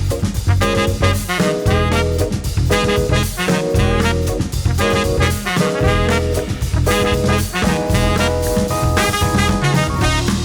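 Background swing-jazz music with brass instruments and a drum kit.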